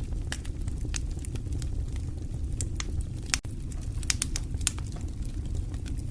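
Fire burning in a fireplace: a steady low rumble of the flames with scattered sharp crackles and pops, a few louder pops a little past the middle.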